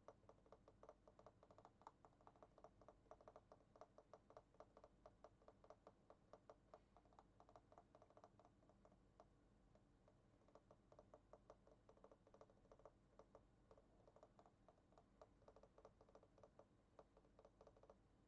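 Faint, rapid typing on a computer keyboard: a quick run of keystroke clicks that slackens briefly about halfway through, then carries on.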